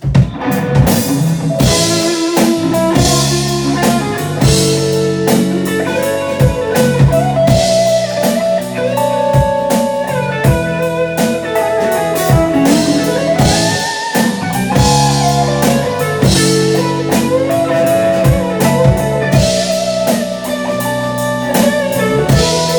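A live band playing an instrumental break: a guitar melody with bending, gliding notes over a steady drum kit beat.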